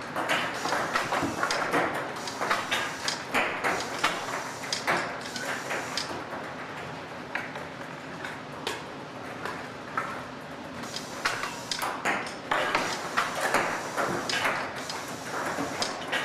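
Irregular clicks and pings from a hand-worked air-cannon game firing balls at a giant nose inside a netted tunnel.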